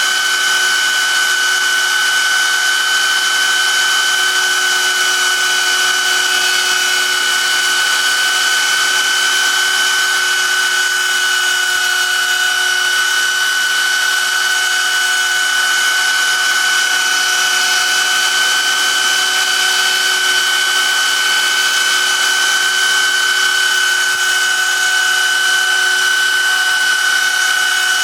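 DIY CNC router's spindle motor running at speed while engraving text, a steady high-pitched whine over a hiss that holds unchanged throughout.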